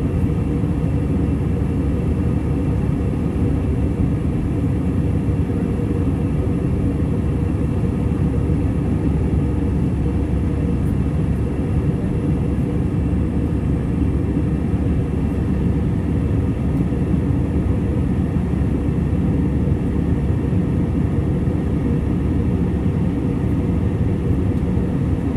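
Steady cabin noise in an Airbus A320-214 climbing after takeoff: its CFM56-5B engines running under power and the rush of airflow past the fuselage, a constant deep rumble that does not change.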